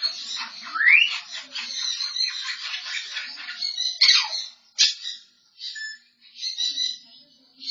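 African grey parrot chattering and mimicking sound effects: a quick rising whistle about a second in, then sharp clicks and a falling squeal about halfway through, followed by scattered shorter calls.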